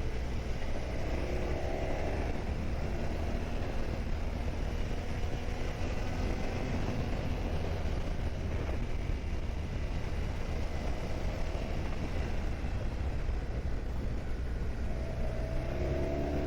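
Motorcycle underway, a steady low rumble of engine and riding noise, with the engine pitch rising briefly about a second in and again near the end.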